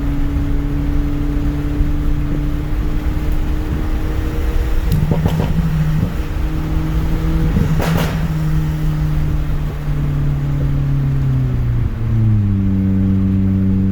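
Turbocharged 1.6-litre four-cylinder engine of a pop-and-bang-tuned Hyundai Veloster Turbo with an aftermarket axle-back exhaust, running with a steady exhaust note. It gives short clusters of sharp crackles about five and eight seconds in, and its pitch steps down about twelve seconds in.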